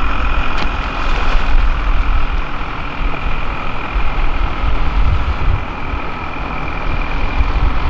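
Boat motor running steadily, with a constant high whine over the engine noise and wind rumbling on the microphone.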